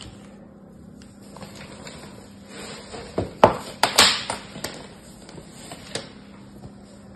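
Hard bars of soap, their surfaces scored in a crosshatch, set down on a table and knocked against one another: a cluster of sharp knocks with a short scraping slide about three to four and a half seconds in, then a few lighter taps, over a faint steady hum.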